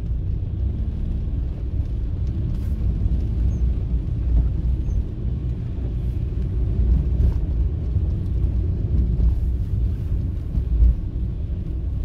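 Steady low rumble of a car driving on a wet road, the engine and tyre noise heard from inside the cabin.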